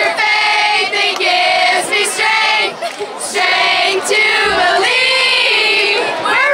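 A group of teenage girls singing a cheer-song together in unison, loud, in short phrases of held notes.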